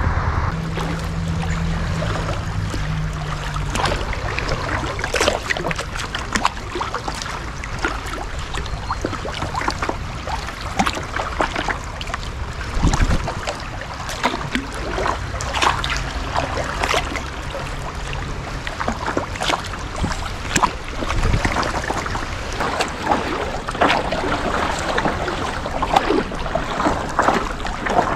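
Water splashing and trickling around a kayak, with irregular splashes throughout.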